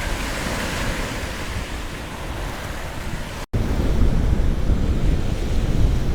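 Baltic Sea surf washing onto the beach in strong wind, with wind buffeting the microphone. A brief dropout about halfway through, after which the low wind rumble is heavier.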